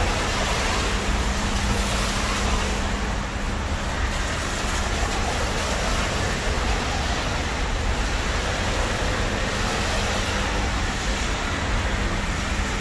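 Steady hiss of a wet city street: rain falling and car tyres running on wet asphalt.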